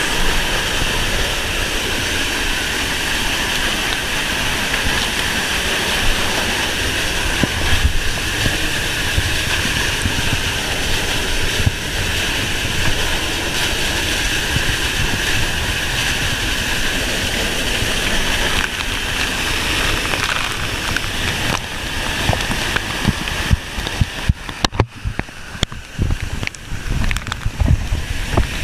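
Steady rushing of a large, flood-swollen waterfall heard close up. In the last few seconds the sound turns uneven, with low buffeting thumps breaking into it.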